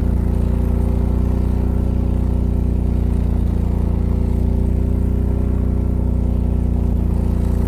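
A 20 kW-class residential standby generator's engine running steadily under load at a constant 3600 RPM. It makes an even, loud low hum with layered tones and no change in speed.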